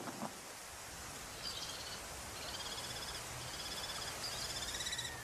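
Common kestrel calling: short, high, rapidly trilled calls repeated about once a second, over a steady outdoor hiss.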